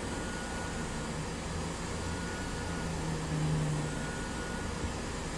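Steady whir of electronics rework equipment running, with a low hum that swells briefly about three to four seconds in.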